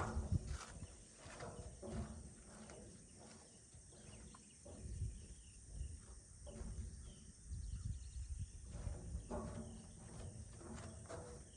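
Shoreline ambience: small waves lapping, with a few faint bird chirps over a low, uneven rumble.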